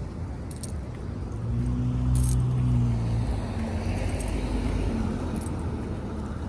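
A car engine hums as a vehicle goes by on the street, growing louder for a couple of seconds and then easing off. A few light metallic jingles sound over it.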